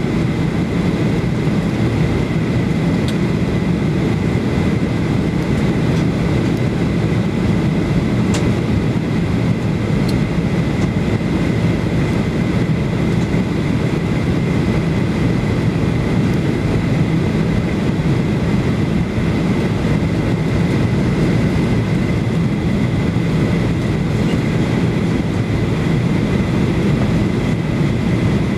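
Steady cabin noise inside a Ryanair Boeing 737-8200 on its descent to land: the low rush of airflow and its CFM LEAP-1B engines, with a thin steady whine above it.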